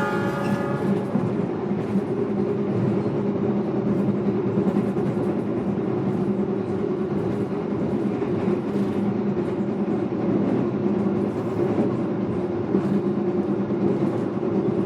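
Steady running rumble inside an executive-class passenger train carriage under way. A held chord of several tones fades out about a second in.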